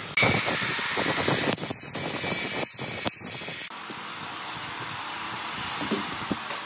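Makita circular saw running and cutting through a wooden board, a loud whine and rush of blade noise that stops about three and a half seconds in, leaving a quieter steady hiss.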